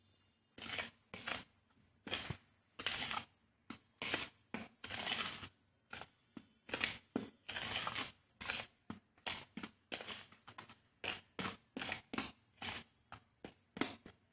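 Plastic spoon stirring dry cake mix (flour, sugar and cocoa powder) in a plastic bowl: a steady run of short scraping strokes, about two to three a second, quickening after the halfway point.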